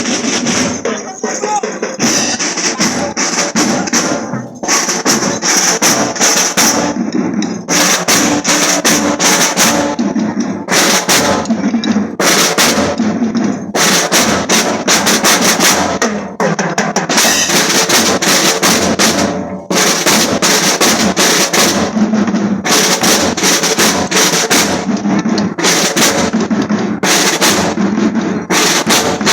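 A school marching drum band playing a marching cadence on snare drums and bass drums, with rapid snare rolls.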